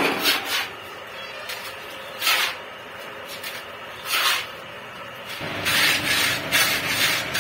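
Steel trowel scraping across the wet cement surface of freshly cast concrete fence pillars during finishing: separate short strokes about every two seconds, then denser, continuous rubbing from about two-thirds of the way through.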